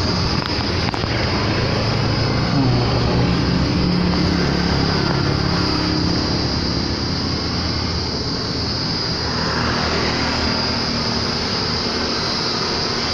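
Diesel truck engine idling: a steady low drone whose pitch shifts slightly partway through, over a constant background hiss.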